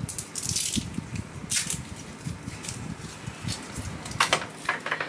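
Cable handling: a USB cable being uncoiled and pulled across a desk, with irregular rustles, brief swishes and small knocks.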